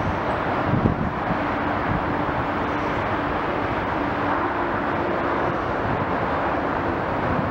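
Steady distant engine noise from heavy machinery or traffic, with a faint hum that comes and goes and a light knock about a second in.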